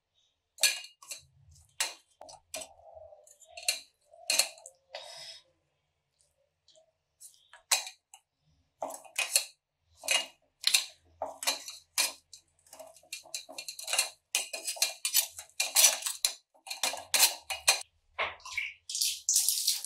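Steel spoon scraping and clinking against a stainless steel mesh strainer and the steel pot beneath it, pressing boiled brahmi leaves to squeeze out their liquid. Irregular clinks and scrapes, busier and more continuous in the second half, with a longer scrape near the end.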